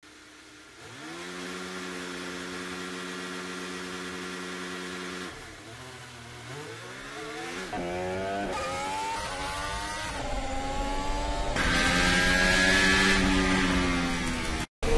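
Formula 1 cars' 1.6-litre turbocharged V6 hybrid engines heard onboard: first held at steady revs, then accelerating hard, the pitch climbing and dropping back at each upshift. In the last few seconds the engine is louder, with more hiss, and the sound cuts out briefly near the end.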